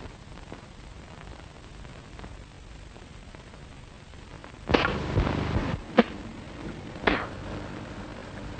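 Steady hiss of an early sound-film soundtrack, broken about halfway through by a sudden noisy burst lasting about a second, then a sharp crack and a shorter burst.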